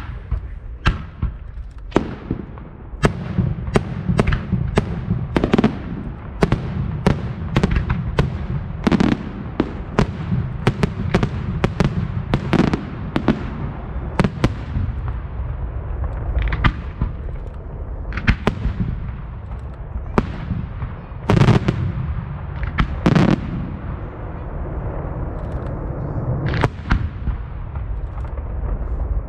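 Fireworks display: a rapid, irregular run of shell bursts and sharp bangs, many trailing off in echoes. The heaviest booms come about two-thirds of the way through.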